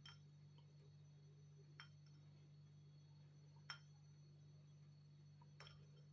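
Near silence: room tone with a steady low hum and a faint click about every two seconds.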